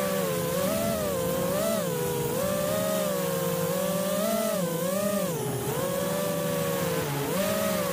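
The Flywoo Mr. Croc 5-inch quadcopter's four brushless motors (Emax RS II 2306 2400kv) spinning Dalprop T5043C propellers, a buzzing whine whose pitch keeps rising and falling every second or so as the throttle is worked through the freestyle manoeuvres.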